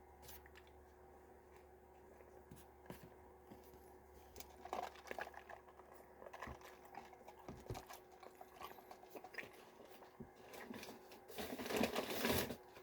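Paper fast-food packaging (wrappers and bag) rustling and crinkling as it is handled, with small scattered clicks and a louder stretch of rustling near the end.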